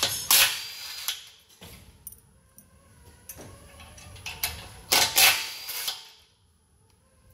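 Snap-on cordless power tool spinning nuts onto the control-arm pivot bolts, in two short runs of about a second each: one just after the start and one about five seconds in. Light metal clicks of handling come between the runs.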